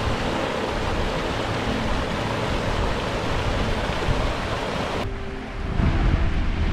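Rushing water of a small moorland stream tumbling over rocks in little cascades, a steady hiss that cuts off suddenly about five seconds in.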